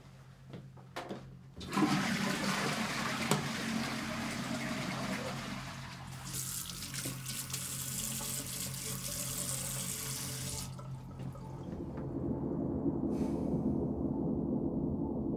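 Toilet flushing: a couple of small clicks, then a sudden loud rush of water from about two seconds in that lasts some nine seconds, giving way to a lower, steadier water noise near the end.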